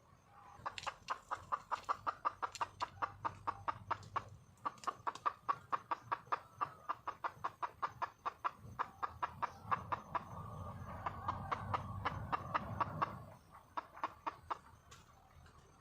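Junglefowl hen clucking rapidly, about five clucks a second in a long run. The run breaks briefly about four seconds in and thins to a few scattered clucks near the end. This is a hen's call for a mate.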